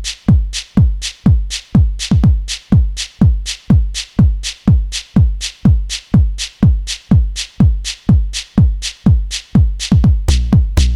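Tribal house music: a drum-machine kick drum pattern at about two beats a second, each beat carrying a deep bass thud, with more percussion coming in near the end.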